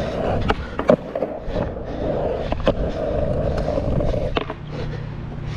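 Skateboard wheels rolling over rough asphalt with a steady grinding rumble, broken by several sharp clacks about half a second, one second, one and a half and two and a half seconds in. A last clack comes about four and a half seconds in, after which the rolling fades.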